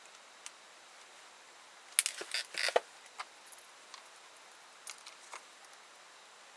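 Small parts and tools being handled during chainsaw reassembly: a quick cluster of sharp clicks and rattles about two seconds in, then a few scattered ticks.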